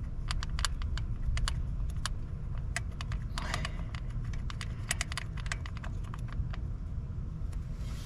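Irregular light metallic clicks and clinks of bolts and hand tools as the oil filter housing is fitted and its bolts are started loosely. A steady low rumble runs beneath.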